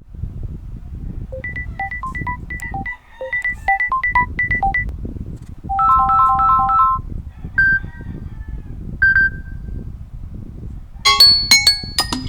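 A series of short Samsung Galaxy ringtone and notification melodies played one after another, over a steady low rumble. First a quick run of bright plucked notes, then a repeated three-note chord figure, two single chimes, and a dense cluster of notes near the end.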